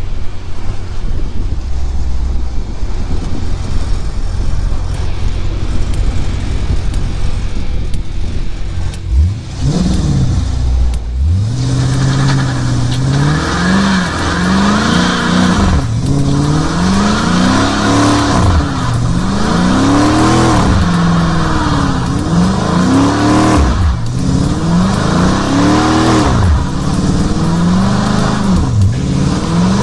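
Dodge Charger's Hemi V8 rumbling, then revved hard up and down again and again, about every two seconds, with a hiss of tyres spinning in a burnout.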